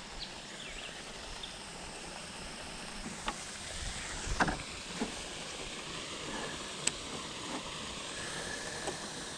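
Faint, steady outdoor wash of wind and water around a canoe, with a few small knocks and clicks scattered through it.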